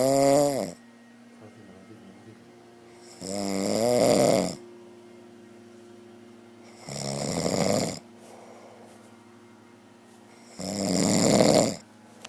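A man snoring heavily in his sleep: a loud, pitched snore every three to four seconds, each lasting about a second, with a quiet gap between them.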